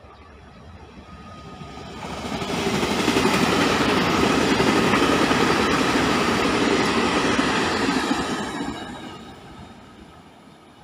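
Two coupled TEMU2000 Puyuma tilting electric multiple units passing at speed: the rumble and rail noise build about two seconds in, hold loud for some six seconds as the cars go by, and fade away near the end.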